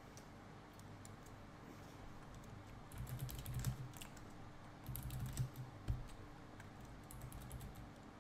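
Typing on a computer keyboard in three short bursts of rapid key clicks, about three, five and seven seconds in.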